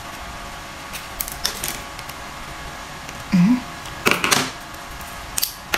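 Small hard plastic clicks and snaps as green plastic toy parts are pressed off a moulded sprue and fitted together, in clusters about a second in, around four seconds in and again near the end. A short hum from a person comes about three and a half seconds in.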